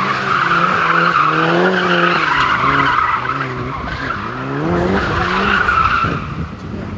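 Mitsubishi Lancer Evo IX's turbocharged four-cylinder engine revving hard, its pitch rising and falling several times as the car is driven around markers, with the tyres squealing as it slides. The squeal fades about six seconds in and the engine gets quieter.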